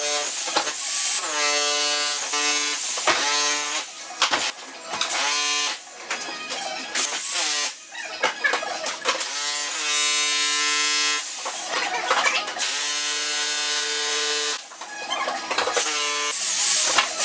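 Electric jackhammer breaking up a floor: the motor hums at one steady pitch in runs of a second or two, starting and stopping several times, over a dense rattle of hammer blows.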